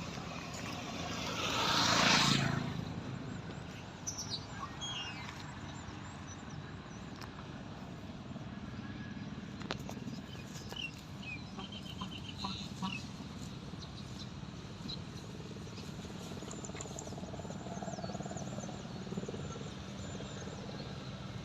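Small birds chirping in short bursts now and then over a steady low hum, with a brief rush of noise that swells and fades about two seconds in.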